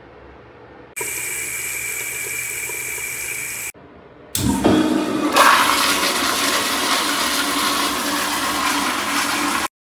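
Ceiling exhaust fan running with a steady hiss and a faint whine. Then an American Standard commercial toilet with a flushometer valve flushes in a loud rush of water, starting a little before halfway through and cutting off suddenly near the end.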